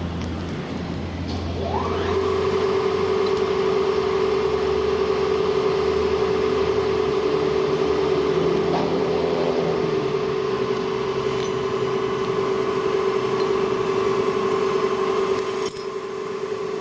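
A machine spinning up with a rising whine about two seconds in, then running at a steady whine that breaks off briefly near the end and picks up again.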